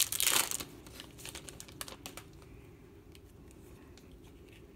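Foil wrapper of a Panini Crown Royale card pack crinkling loudly as it is torn open, followed by a few faint ticks of the cards being handled over a low hum.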